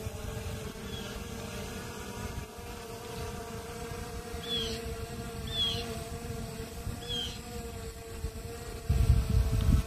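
Quadcopter drone's propellers humming steadily in a hover, with three short high chirps in the middle and a burst of wind rumble on the microphone near the end.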